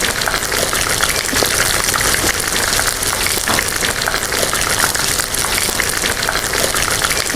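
Chopped onion and garlic frying in hot oil in a pan: a steady sizzle with many small crackles.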